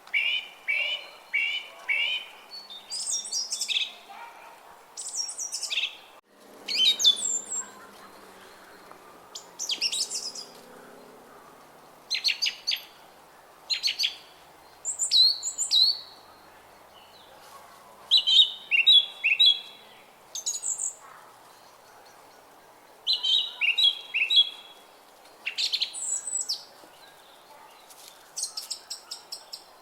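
Songbirds singing: short, high chirping phrases and trills that come every second or two, with a faint steady hiss between them. About six seconds in, the sound briefly cuts out.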